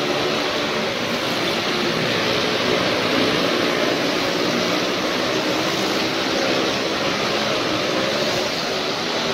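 Several small cars and motorcycles riding round the vertical wooden wall of a well-of-death show, their engines running together in a loud, steady drone with a slightly wavering pitch.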